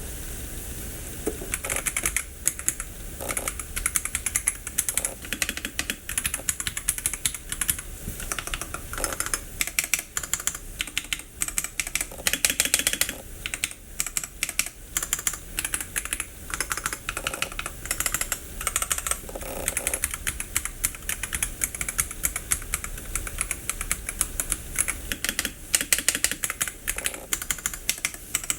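Keys being typed on a Royal Kludge H81 mechanical keyboard with factory-lubed SkyCyan switches: fast, continuous typing with many keystrokes a second and some louder clacks among them.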